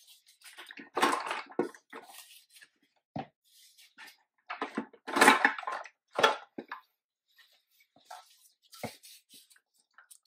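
Metal parts of a DCT470 dual-clutch transmission clunking and scraping in irregular bursts as gloved hands work the gear shafts into the aluminium case, with a short knock near the end.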